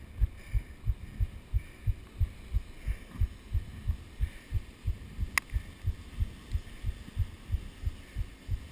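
Low, even thumping close to the microphone, about three to four beats a second, with a single sharp click about five seconds in.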